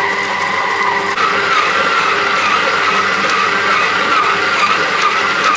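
Electric stand mixer running, its dough hook kneading bread dough in a glass bowl with butter being worked in. The motor whine steps up in pitch about a second in and then wavers slightly.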